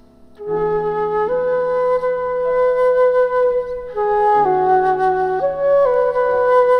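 A flute playing a slow, smooth melody of held notes, coming in about half a second in after a quiet moment.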